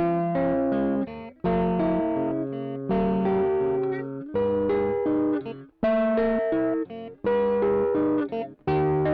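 Schecter electric guitar played through a Caline 'British Sound' overdrive pedal with all knobs set at noon. It repeats short picked phrases of several notes, each starting sharply and lasting about a second and a half.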